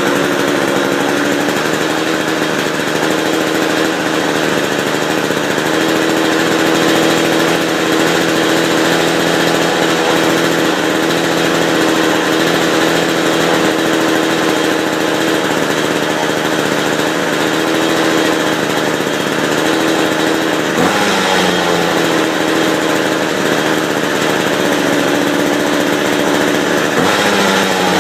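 Small two-stroke McCulloch chainsaw engine running steadily shortly after a cold start, its note shifting about 21 seconds in and again near the end.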